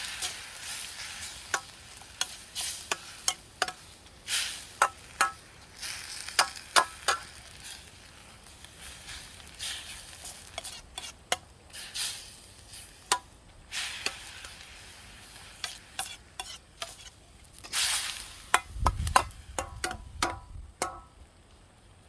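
Food sizzling in a pan while being stir-fried, with a metal utensil clinking and scraping against the pan many times. The sizzle fades near the end while a few clinks go on.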